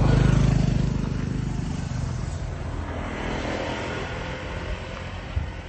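Motorcycle engine passing close by and pulling away, loudest at the start and fading over the first couple of seconds, over steady road noise.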